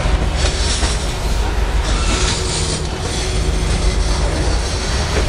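Freight train of covered hoppers and tank cars rolling past: a steady low rumble of steel wheels on rail, with high-pitched wheel noise swelling twice, about half a second in and again around two seconds in.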